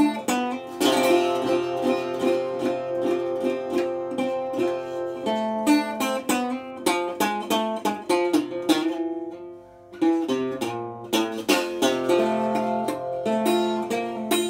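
Resonator guitar played solo in a blues style: picked notes over a steady bass. The playing thins out briefly about nine seconds in, then picks up again.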